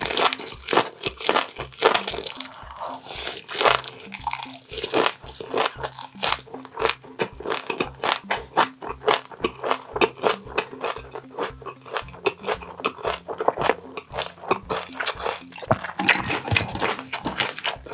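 Close-miked chewing and biting of boiled baby octopus with roe: rapid wet clicks and crunches, with a louder burst near the end. Background music with a steady low beat runs underneath.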